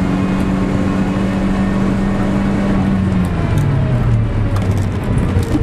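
Rally car's engine heard from inside the cabin, holding steady revs at speed; about three seconds in the revs drop as the car slows.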